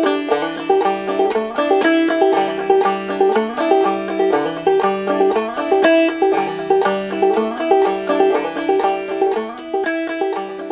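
Background music: a quick plucked-string tune over a stepping bass line.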